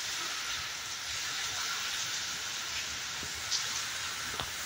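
Heavy rain falling steadily on a paved courtyard and wet ground as an even hiss, with a couple of brief taps near the end.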